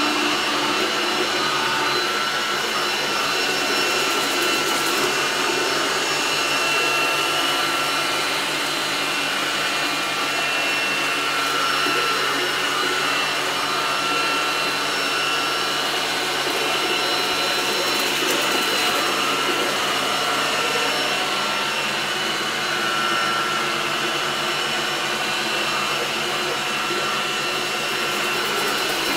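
Xrobot XR 510C robot vacuum cleaner running steadily, its motor giving a constant rushing noise with a high whine.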